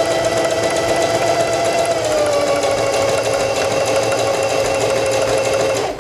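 Singer Heavy Duty 4411 sewing machine running at a steady speed, stitching the side of a buttonhole on step 4 of the buttonhole setting. Its motor whine drops slightly in pitch about two seconds in and stops suddenly near the end, as the stitching reaches the bottom bar tack.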